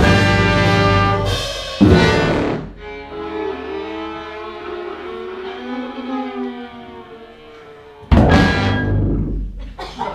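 A large mixed band of saxophones, brass, tuba, flute, violin and drums playing live: loud full-band chords with two sharp accents, then a quieter held passage with the violin bowing, then one last loud full-band hit about eight seconds in that rings out.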